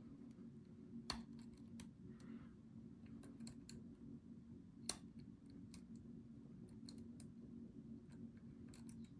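Faint, scattered metallic clicks and ticks of a lock pick working the pin stacks of an ASSA 700 cylinder under tension, with two sharper clicks about a second in and about five seconds in, as the tapered drivers are picked into a false set. A low steady hum runs underneath.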